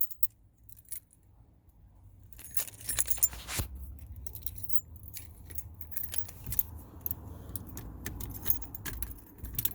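A bunch of keys jangling and clicking as they are handled. The sound starts about two and a half seconds in, after a quiet start, and runs on as a stream of small metallic jingles.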